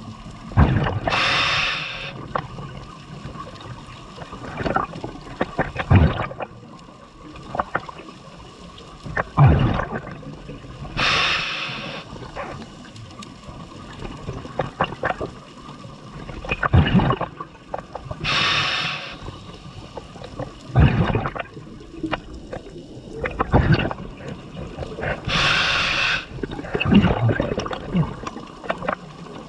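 Scuba diver breathing through a regulator underwater: a loud rush of exhaled bubbles about every seven seconds, four times, with gurgling and bubbling between breaths.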